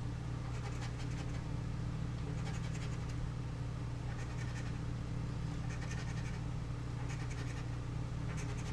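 Scratch-off lottery ticket being scratched: short bursts of quick scraping strokes, several times, as the coating is rubbed off the play spots. A steady low hum runs underneath.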